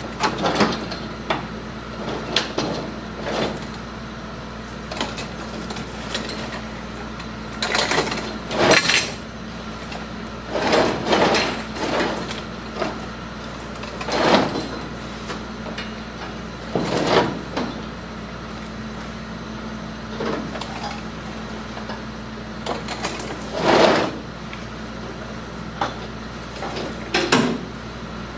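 Manure spreader apron chain clanking and rattling in irregular bursts as it is handled and drawn up under the spreader bed, over a steady low hum.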